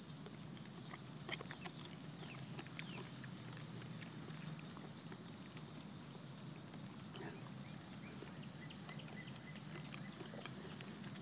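A person chewing and tasting a fresh fig: faint, scattered wet mouth clicks, with a steady high-pitched drone behind.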